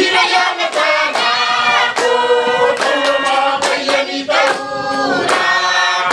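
A choir of women and men singing a song together, with sharp hand claps about once a second.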